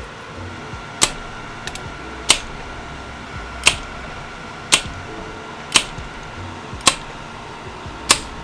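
Seven sharp, evenly spaced clicks, about one a second, over a steady hiss with a faint high tone.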